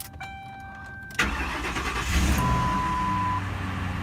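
2007 Ford Crown Victoria Police Interceptor's 4.6-litre modular V8 cold-started: it catches suddenly about a second in, swells up and settles into a steady fast idle. Before the start there are a few clicks under a steady chime tone, and a short single-tone beep sounds as the engine settles.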